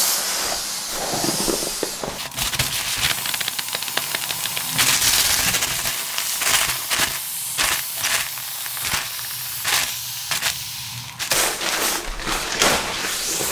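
Air hissing out through the locked-open valve of an Exped AirMat inflatable sleeping mat as it is pressed and folded to deflate it, with many sharp crackling rustles of the mat's fabric.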